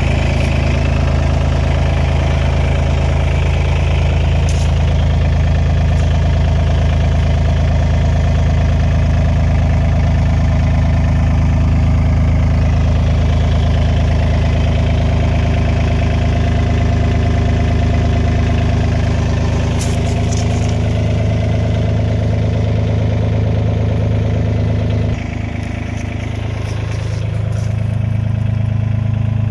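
Diesel engine of a 2004 Case CX36 mini excavator idling steadily. About 25 seconds in its speed drops suddenly, then climbs back up over a couple of seconds.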